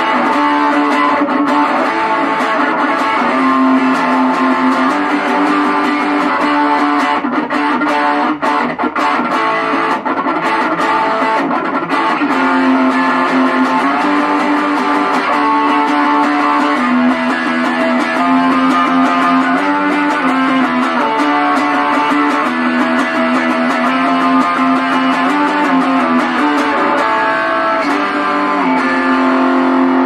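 Electric guitar played without a break through a Belcat G-10 practice amp with its overdrive on and the switch in the up position: a light, slightly crunchy distortion, not heavy.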